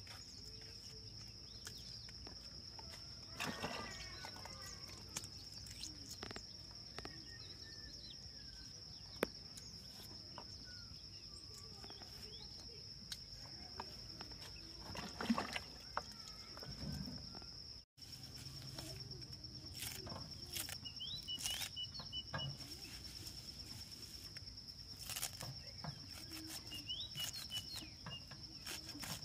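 A steady high-pitched buzz over outdoor ambience, with a few bird chirps and scattered soft rustles and snaps of leafy greens being stripped and handled.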